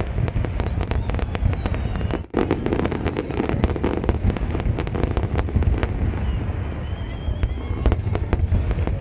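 Fireworks display: rapid, dense crackling and popping of many bursting shells over a steady low rumble, with a brief dropout about two seconds in.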